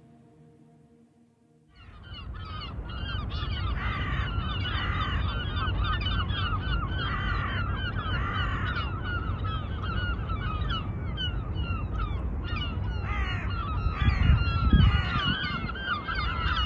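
A large flock of birds calling, many short calls overlapping into a dense clamour that cuts in abruptly about two seconds in, after a faint fading tail of music. A low rumble runs underneath and swells briefly near the end.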